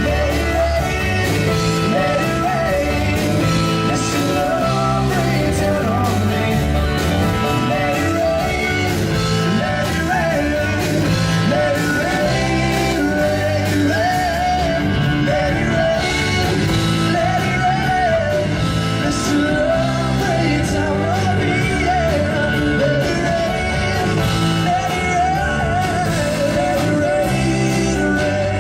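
Live blues-rock band performance: a singer over electric guitar and a full band.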